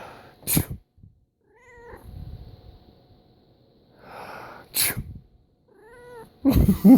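A person sneezes twice, each time with a breathy intake and then a sharp burst, and each sneeze is answered about a second later by a short, complaining meow from a house cat. Near the end comes a louder, longer burst of voice.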